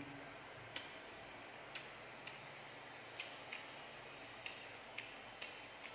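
A person chewing food with the mouth closed: faint sharp clicks and crunches at irregular intervals, roughly one or two a second, over a low steady hiss.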